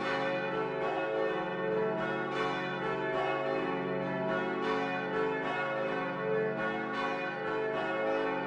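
Church bells ringing a continuous peal, a new strike about twice a second, each ringing on under the next.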